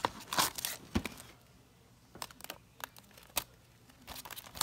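Baseball cards in plastic sleeves being handled and flipped through: a series of crisp plastic rustles and clicks, quieter for a moment in the middle.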